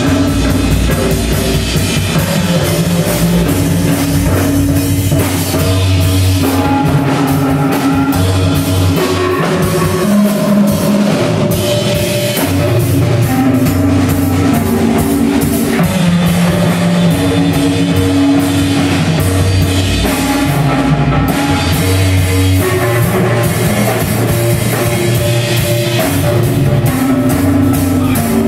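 A live band playing loud, drum-driven rock: a busy drum kit under guitar holding long, sustained notes.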